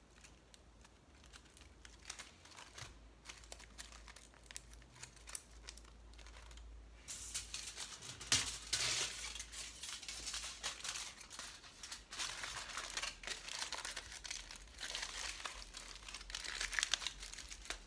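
Aluminium foil crinkling and rustling as it is handled, pressed and wrapped around a foil sculpture. It starts with faint, scattered crackles, then becomes louder, dense crinkling from about seven seconds in.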